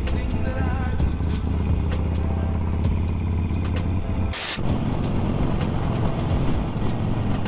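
Harley-Davidson Sportster V-twin running at road speed, heard from the rider's seat with wind noise on the microphone. About four and a half seconds in a short burst of noise breaks in and the sound changes to a rougher rush.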